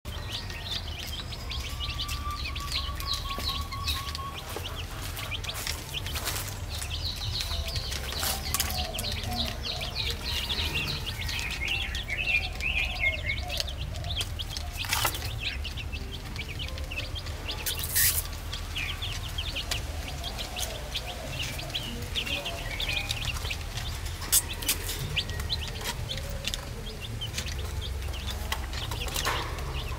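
A flock of baby chicks peeping continuously in quick, high cheeps, with a few sharp clicks here and there.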